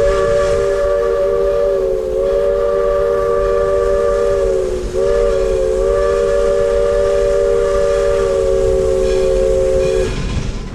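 Steam locomotive's chime whistle blowing one long, loud blast of three close notes sounded together as a chord. It sags in pitch and briefly dips about five seconds in, then cuts off near the end, over a low rumble and hiss.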